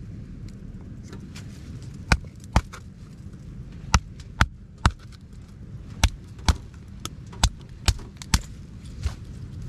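Firewood being split into small kindling pieces: sharp chopping strikes in twos and threes, about half a second apart, starting about two seconds in.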